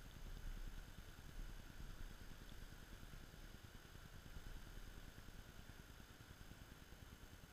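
Near silence: a faint, steady low rumble and hiss of background noise, with no distinct sounds.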